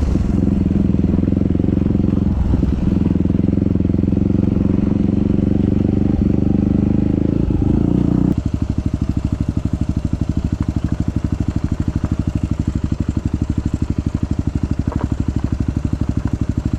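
Yamaha WR250 supermoto's single-cylinder four-stroke engine running with a steady, even beat. It is under throttle at first, then backs off to a lower, quieter steady note about eight seconds in.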